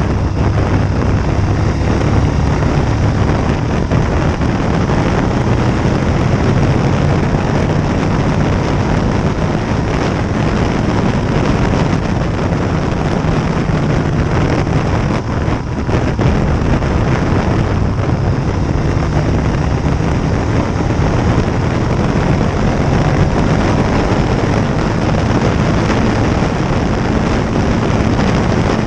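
Motorcycle riding at highway speed: a steady rush of wind on the microphone with the engine running low underneath, dipping briefly about halfway through.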